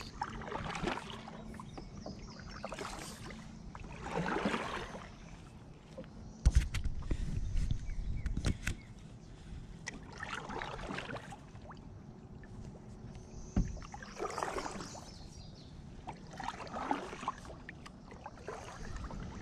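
Kayak paddle strokes: the blades dip and pull through lake water, with a splash and drip every couple of seconds. Two dull thumps fall about a third and two thirds of the way through.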